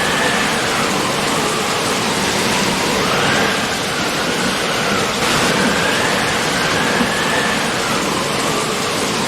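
Steady, heavy rainfall with a constant dense hiss. A faint tone slowly rises and falls in the background.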